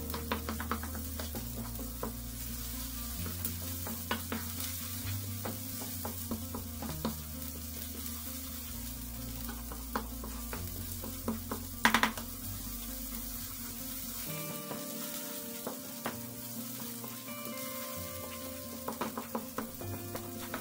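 Tomato paste frying in oil in a non-stick pan, sizzling steadily while a wooden spoon stirs and scrapes it, with scattered light knocks of the spoon on the pan and one louder knock about twelve seconds in.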